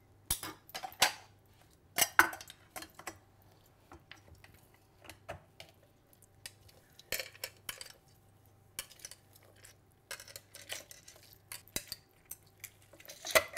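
A kitchen knife cutting oranges in half on a wooden chopping board, then orange halves pressed and twisted on a hand citrus juicer with a metal reamer. Scattered knocks and clinks, the loudest in the first couple of seconds.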